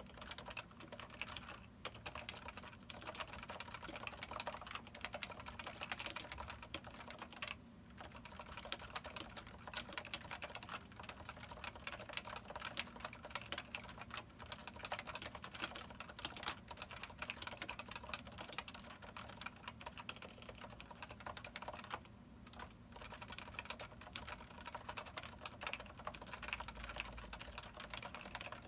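Fast, continuous typing on a full-size Topre electro-capacitive keyboard with 45 g rubber domes and ABS laser-printed keycaps, on unlubricated sliders. The typing pauses briefly about eight and twenty-two seconds in.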